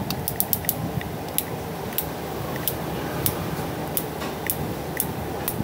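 Small, sharp, irregular plastic clicks of a cordless hair clipper's five-position blade-length lever being moved back and forth through its settings, over a steady low hum.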